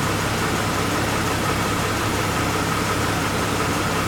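Jeep Cherokee XJ's inline-six engine idling steadily while its camshaft position sensor is being turned to line up the cam signal with the crank signal.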